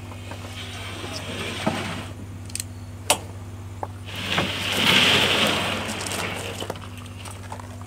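Sheets of drywall rubbing and scraping against each other as one is slid and lifted off a stack, loudest in a long scrape a little past the middle, with a couple of sharp knocks earlier.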